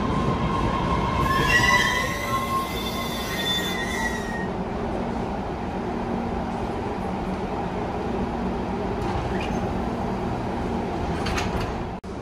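MBTA Red Line subway train rolling along the platform with a steady rumble. A high metallic squeal from the wheels on the rail rises about a second in and fades out after about four seconds.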